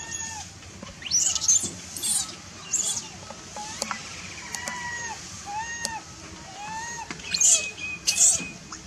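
Infant long-tailed macaque crying: a string of short, arched whimpering calls about once a second, broken by several louder shrill screeches, near the start and again near the end. The crying is the baby's distress at being refused its mother's milk.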